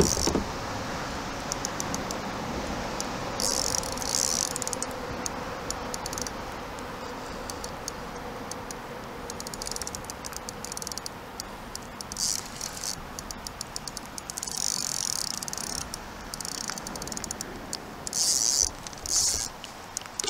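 Fishing reel clicking in short rapid spells, about a second each, while a hooked steelhead is played, over a steady hiss of moving water.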